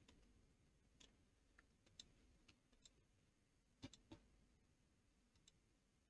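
Faint computer mouse clicks, about eight at irregular spacing, with the loudest pair a little past the middle, over near-silent room tone.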